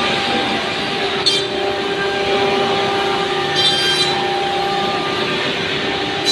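Spindle of a 5-axis CNC router running with a steady whine while its bit carves a block of wood, with brief sharper, higher-pitched bursts of cutting a little over a second in and again between about three and a half and four seconds in.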